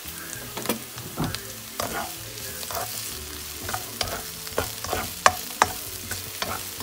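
Sliced red onions sizzling in hot oil in a wok while a slotted spatula stirs them, scraping and tapping against the pan in irregular clicks.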